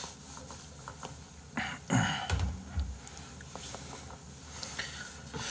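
Quiet room sounds from a person at a desk: a short breathy noise about a second and a half in, then a louder low thump and a few soft knocks, with scattered faint clicks.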